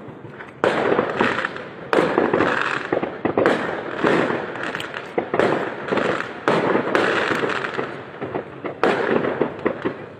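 Fireworks going off in a series of bangs, one every second or two, each fading out over about a second.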